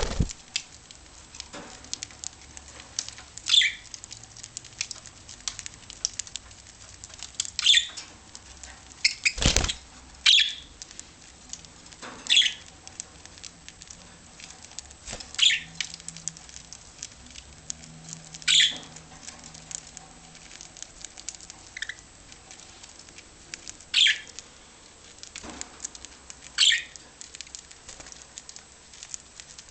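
Budgerigars giving short, high chirps every few seconds over a constant patter of small clicks and rustles, with a single loud thump about nine and a half seconds in.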